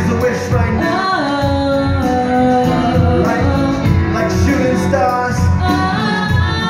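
Live band playing a pop song with singing over drums, bass, electric guitar, piano and violin. The voice holds long, sliding notes.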